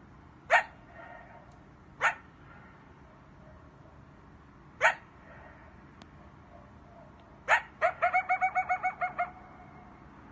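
Coyote barking: four sharp barks a couple of seconds apart, then a quick run of about ten high yips near the end.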